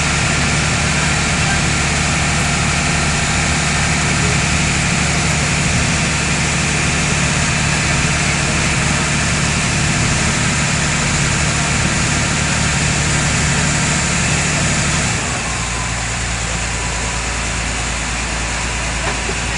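A passenger boat's diesel engine runs with a steady, loud drone. About 15 seconds in, it drops to a lower, quieter note as the engine is throttled back.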